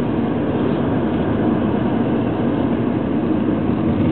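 Steady road and engine noise of a moving car, heard from inside the cabin: an even low rumble with a hiss over it.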